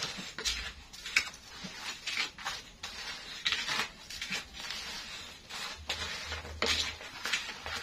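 A spatula scraping and stirring in a wok as krupuk crackers are fried, in short irregular strokes a few times a second.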